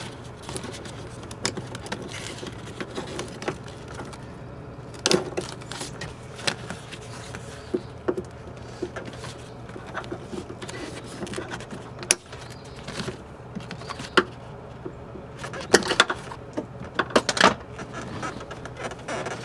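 Plastic moisture barrier sheet being peeled off a truck's inner door panel: irregular crinkling and rustling with scattered sharp snaps and clicks as it pulls away from its adhesive, several louder snaps in the second half.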